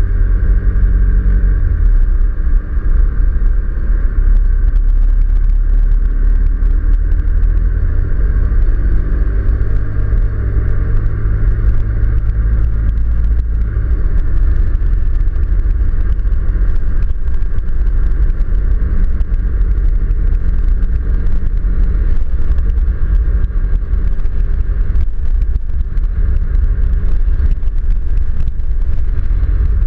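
Four-wheel-drive vehicle driving on an unsealed red-dirt road, a steady low rumble of engine and tyres on dirt picked up by a camera mounted on the vehicle. The engine note rises for a few seconds and drops about halfway through.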